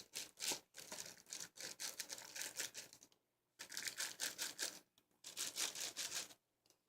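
Packaging and parts of a new DJ controller being handled: rapid scratchy rustling and clicking in three bursts, each a few seconds long or less, with brief pauses between them.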